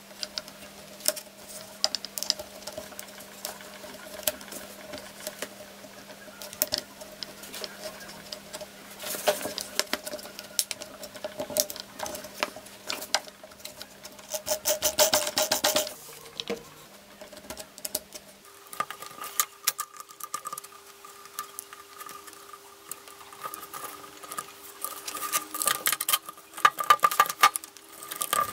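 Small clicks, taps and rubbing of metal and plastic parts being handled: a carbon-brush holder and its wires being fitted into an opened electric drill's plastic housing. The clicks come in busier flurries around the middle and near the end, over a faint steady hum.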